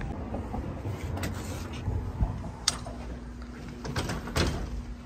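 A door being opened and let shut: a few separate clicks and knocks. A faint steady hum comes in about halfway through.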